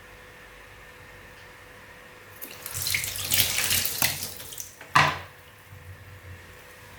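Water running and splashing loudly for about two seconds, then a single sharp burst that dies away quickly.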